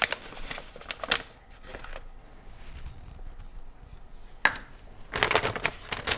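Stiff plastic flour bag crinkling as it is handled, then a quieter pause, a sharp tap of a plastic measuring cup against a glass bowl, and more crackly rustling and scraping near the end.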